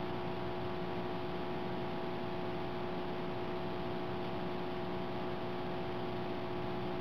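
Steady electrical hum with a few faint pitched tones over a background hiss, unchanging throughout.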